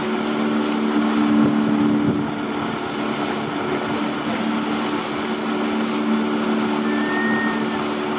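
Small fishing boat's engine running at a steady cruising speed, a constant low hum over the rush of water along the hull.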